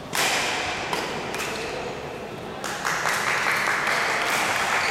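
A sharp racket hit on the ball or shuttle in a hall, then about three seconds in a louder swell of players' and onlookers' voices and shouts.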